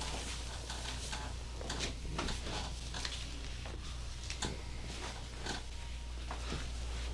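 Scattered soft clicks and rubbing noises at an irregular pace, over a steady low hum.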